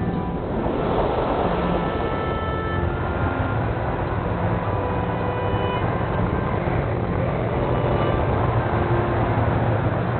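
Steady rushing of wind over the microphone during paraglider flight, with background music of held notes over it.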